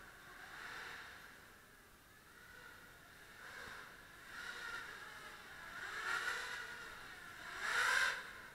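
A 250-size quadcopter drone's motors and propellers whining, their pitch rising and falling as the drone flies about. It grows louder in swells, most strongly about six seconds in and again, loudest, near the end.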